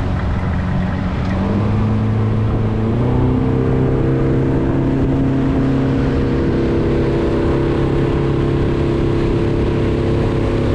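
Motorboat engine throttling up, its pitch rising over the first three seconds, then running steadily as the boat gets under way.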